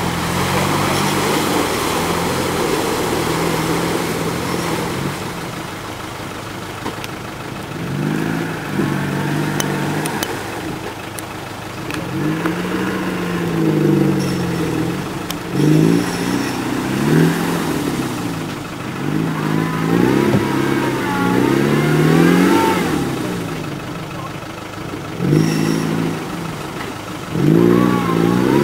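Land Rover Defender engine revving up and down over and over, its pitch rising and falling with short louder surges of throttle.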